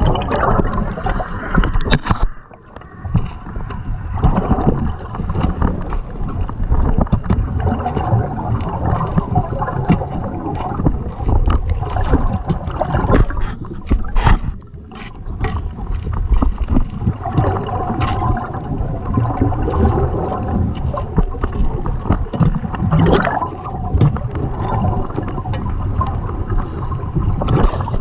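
Underwater: a diver's exhaled air bubbling and burbling out of the regulator and past the camera housing, in repeated gushes with two short quieter breaks, about two and a half and fifteen seconds in.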